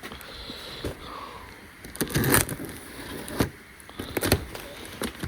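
A cardboard shipping box being cut open with a grafting knife: irregular scraping, rasps and knocks, the loudest about two seconds in, with more near the end.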